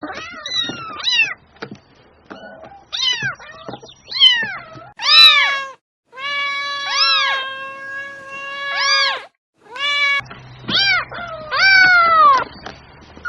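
Domestic cat meowing over and over: about a dozen meows, most short and rising then falling in pitch, a few long and drawn out, with two brief silent breaks between them.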